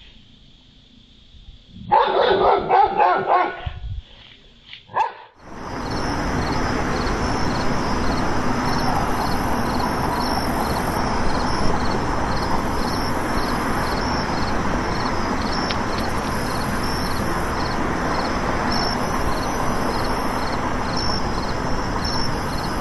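Dog barking in a quick run of barks about two seconds in, with one more bark a little later. From about five seconds on there is a steady loud hiss.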